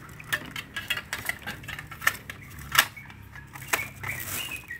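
Plastic cassette cases clicking and clattering together as they are handled and sorted, with irregular sharp clicks, the loudest a little past halfway, and a brief rustle of the plastic bag near the end.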